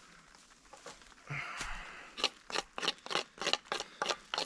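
Knife blade shaving down a dry stick to make kindling. One longer scrape comes about a second and a half in, then quick, regular scraping strokes at about four a second.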